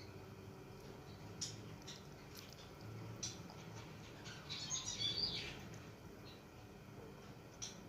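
Green parrot at green beans, making scattered sharp clicks of beak on bean, with a short burst of high chirping squeaks about five seconds in.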